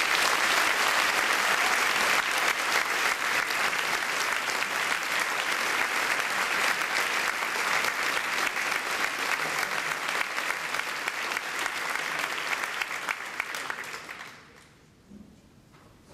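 Audience applauding, a steady dense clapping that dies away near the end.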